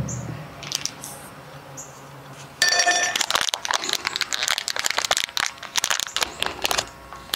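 Crinkly plastic wrappers of individually packed blooming tea balls crackling as they are handled and fingered, starting about two and a half seconds in.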